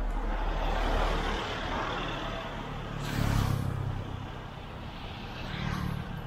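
Road traffic: motor vehicles passing close, with a brief hiss and a heavier rumble about three seconds in.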